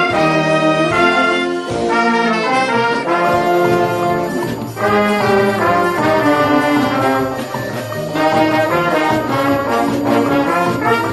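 Orchestra playing a festive São João tune, with trombones and trumpets carrying the melody in held and repeated notes over a steady beat.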